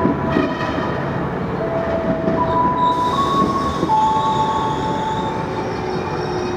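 KRL Commuterline electric train entering the station, with a steady rumble of wheels on rail. Several held high tones step from one pitch to another as it goes.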